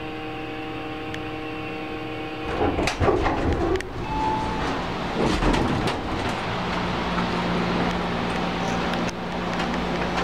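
Otis Series 1 hydraulic elevator arriving: a steady hum from the elevator that cuts off suddenly about two and a half seconds in, followed by a few seconds of knocks and rustling as the sliding doors open and the car is left. A low steady hum follows in the second half.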